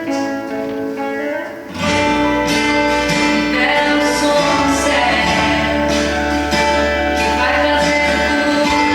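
Music: a worship song with guitar, with bass and a fuller band coming in about two seconds in.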